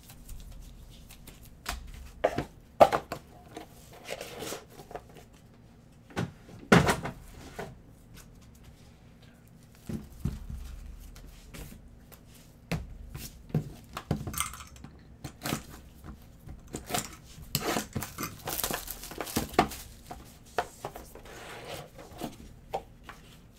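Gloved hands opening and handling boxes of trading cards: crinkling and tearing of packaging, cardboard rubbing, and scattered sharp clicks and thunks, the loudest about 3 and 7 seconds in.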